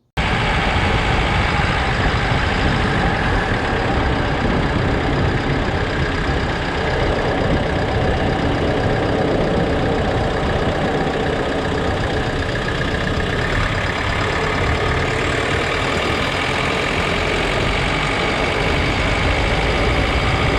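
Steady, loud road and running-gear noise of a van being driven, picked up close by a camera mounted on its front suspension. The tyres, the drivetrain and wind on the camera are heard together. The van shakes at speed, and its driveshaft joint turns out to have broken rollers inside.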